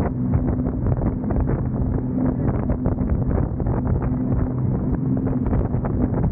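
Jet boat's engine running steadily under way, one steady low drone, with heavy wind buffeting the microphone.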